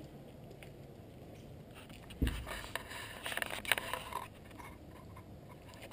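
Handling noise from a hand-held camera being carried: a sudden thump about two seconds in, then a couple of seconds of rustling and scraping with small clicks.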